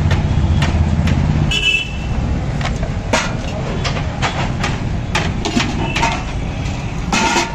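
Steady rumble of road traffic, with a short vehicle horn toot about one and a half seconds in. Sharp clinks of stainless-steel plates being stacked and handled sound throughout.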